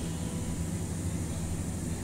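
A steady low hum with an even hiss over it, unchanging throughout: background machine noise.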